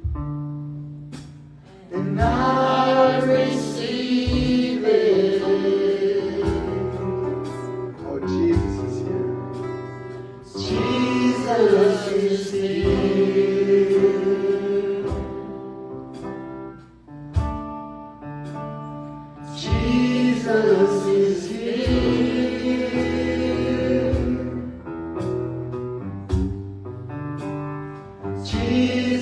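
Gospel worship music: a choir or group of singers holding long sung phrases over a steady instrumental backing, with a phrase starting about every eight or nine seconds.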